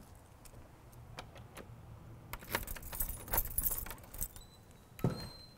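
A ring of keys jangling and clicking as a key is worked in the lock of an old wooden door, densest a little past halfway, then a single thump near the end.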